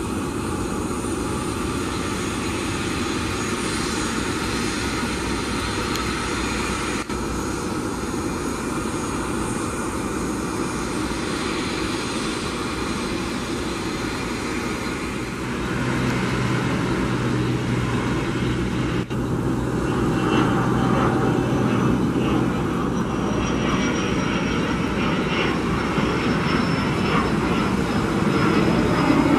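Israel Aircraft Industries 1124 Westwind business jet's twin Garrett TFE731 turbofans during its takeoff run: a steady jet noise that grows louder about halfway through as power comes up, and louder again a few seconds later. Over the last third a high whine slowly falls in pitch as the jet speeds past and lifts off.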